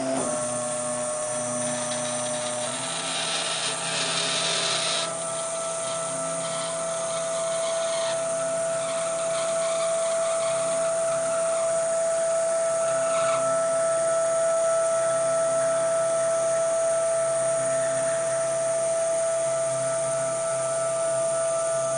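Homemade CNC table's axis drive motors running as the gantry moves a marker pen over plywood: a steady whine that steps up slightly in pitch a few seconds in, with a brief rougher hiss lasting a couple of seconds around four seconds in.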